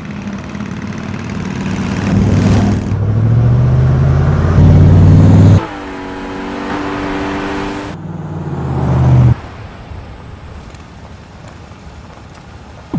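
Road vehicle engines revving and accelerating in a series of cut-together passes. The engine note rises in pitch and breaks off abruptly twice, with a steadier, higher engine tone between the two, and it is quieter after about nine seconds.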